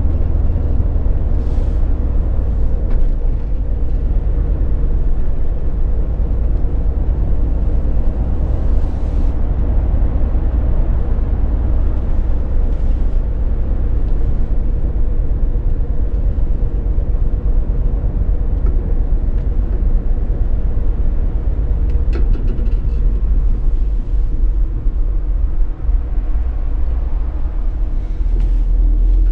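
Ford Mustang driving at a steady pace, heard from inside the cabin: a continuous low engine rumble mixed with road noise.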